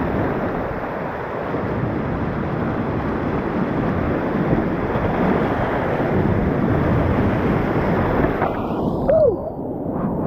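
Creek whitewater rushing steadily, loud and close, with water and wind buffeting the microphone. About nine seconds in, the higher hiss drops away and the sound goes muffled for a moment.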